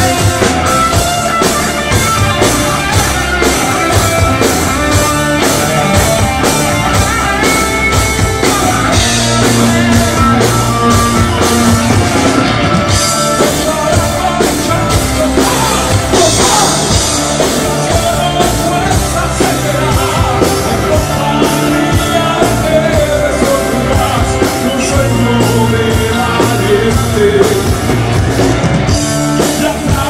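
Live rock band playing: drum kit, electric guitar and bass guitar, with a man singing lead vocals over them.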